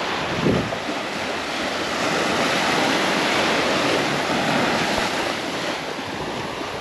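Waves breaking and washing up a sandy beach, swelling louder in the middle and easing off near the end, with a brief low thump about half a second in.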